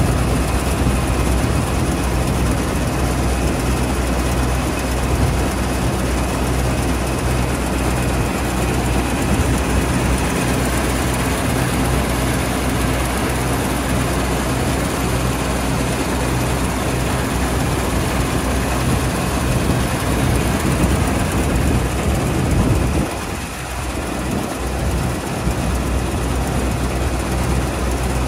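Deutz-Fahr 4080 HTS Topliner combine harvester's diesel engine running steadily with a low, even hum and a faint high whine. It drops briefly in level about 23 seconds in.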